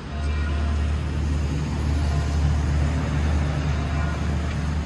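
Motor vehicle engine running close by: a steady low rumble that sets in at the start and holds throughout, over street traffic noise.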